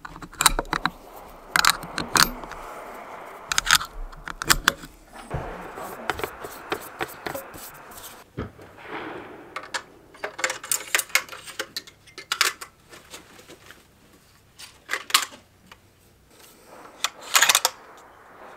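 A run of sharp metallic clicks and clacks from rifle handling: cartridges being pressed one by one into a rifle's detachable box magazine, with the rifle and its parts being worked.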